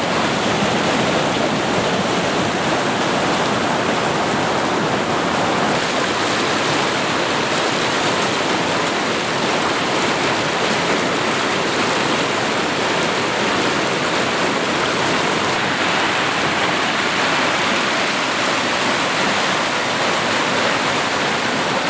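Creek water rushing over rocks and small rapids close by, a steady, unbroken rush.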